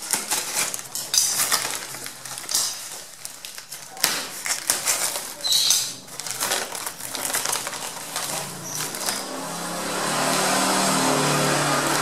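Paper wrapping and packing tape being ripped and crumpled off a wire-mesh bird cage: a run of irregular crackling tears. About nine and a half seconds in, a steadier, louder hiss with a low hum comes in.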